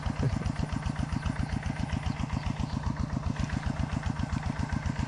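Small single engine running steadily at low speed, an even rapid putt-putt of about ten beats a second.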